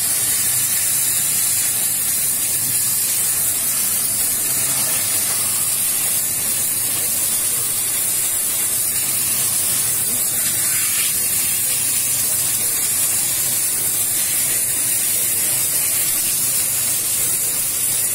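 Steam jet from a Scarpavapor No Limits shoe-cleaning machine hissing steadily at high pitch as it blasts a foam-covered shoe.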